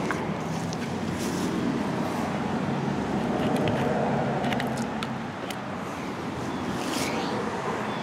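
Heat pump outdoor unit running with a steady hum, with scattered light ticks over it.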